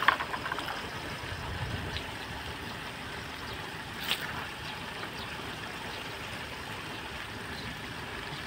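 A small engine running steadily, with a single light knock about four seconds in.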